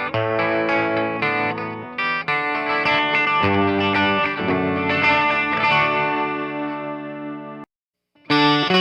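Electric 12-string guitar strumming chords. It stops abruptly near the end, and after a short silence the playing starts again.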